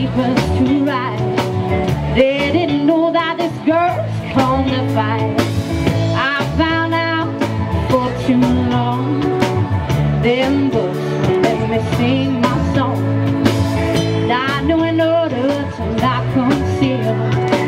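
Rock song with guitar, playing as background music.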